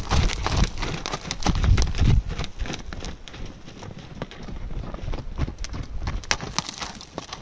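Hooves of several wild horses trotting over dry, dusty dirt: quick, uneven knocks with heavy close thuds in the first couple of seconds, then fainter as the horses move away.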